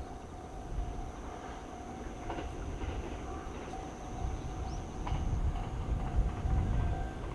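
Japanese level crossing warning bell ringing in a steady repeating tone while an approaching train's rumble builds from about five seconds in.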